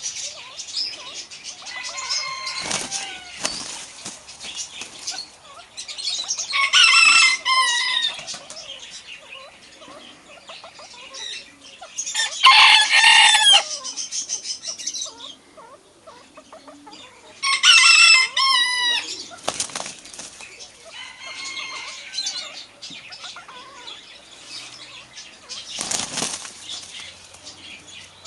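A rooster crowing three times, each crow lasting about a second and a half, with quieter chicken calls between the crows.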